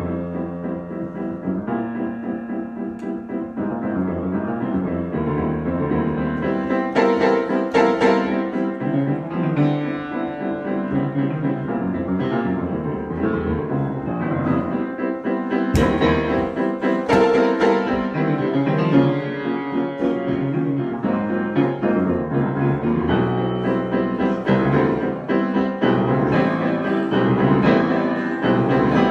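Piano played as a free improvisation: dense, sustained chords shifting every second or so. One short click sounds about halfway through.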